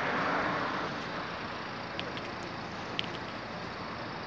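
Road traffic noise: a steady hiss that swells slightly at the start and eases off, with a couple of faint clicks.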